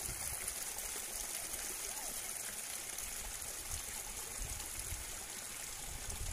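Strong wind: a steady hiss with uneven low buffeting on the microphone.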